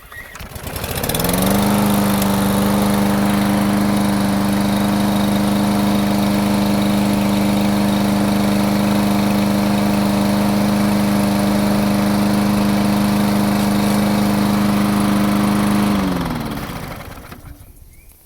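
Lawn mower's small engine, cold, catching on the pull and spinning up to a steady high-speed run. Near the end it is shut off and winds down, its pitch falling until it stops.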